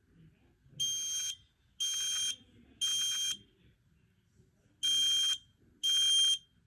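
i1040 smoke alarm sounding its test alarm in the temporal-three pattern: three loud, piercing half-second beeps, a pause of about a second and a half, then the next group of three starting again.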